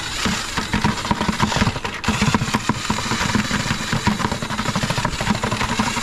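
Cordless drill running, spinning a homemade tulip-auger mixer in a plastic bucket, with irregular scraping and clatter as the auger churns against the bottom. The noise dips briefly about two seconds in.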